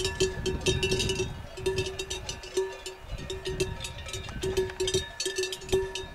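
Bells on a flock of sheep clanking irregularly, many small clinks and short ringing notes overlapping.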